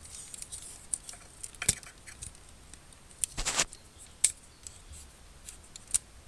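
Hard plastic model-kit parts (Gunpla thruster pieces) being handled and slid into place: scattered sharp clicks with a longer scrape about three and a half seconds in.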